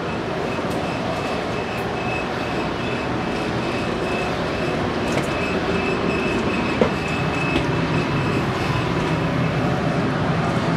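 Steady mechanical rumble and hum inside a passenger rail car of a standing train, from the car's ventilation and onboard equipment. A faint high whine comes and goes over it, with a single sharp click about seven seconds in.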